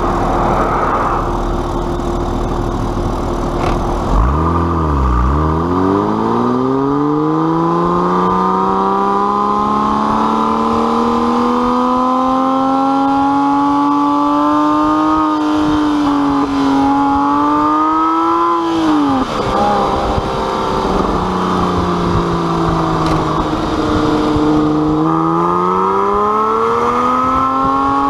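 Porsche 911 Carrera S flat-six through an aftermarket exhaust. It idles at first, then pulls away with the revs climbing smoothly for about ten seconds. Near the middle the revs rise and drop quickly, then hold lower, and they climb again near the end.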